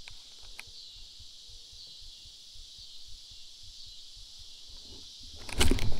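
A faint, steady high chorus of insects with small repeating chirps. About five and a half seconds in, a sudden loud, rough, crackling commotion of splashing and rustling breaks in, just as a fish strikes in the grass.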